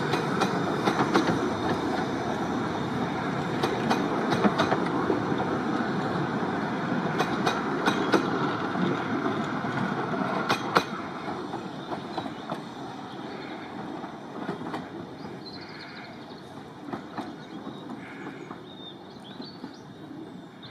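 15-inch-gauge miniature railway coaches rolling past, with sharp wheel clicks over the rail joints and pointwork. The rolling noise stays loud for about ten seconds, then fades steadily as the train draws away.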